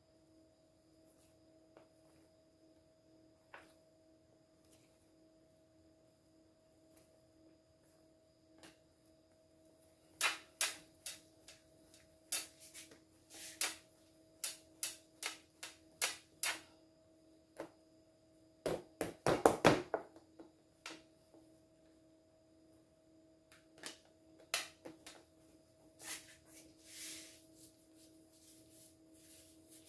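Plastic bench scraper chopping dough, its edge knocking on the table in a string of sharp separate clicks, with a quick flurry of taps a little past the middle; the first third is almost still. A faint steady hum runs underneath.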